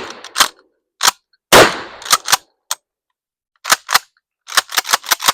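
A pump-action shotgun fires once about a second and a half in, with a short fading echo. The tail of another shot fades out at the start. Short, sharp clicks and clacks come between the shots and in a quick cluster near the end.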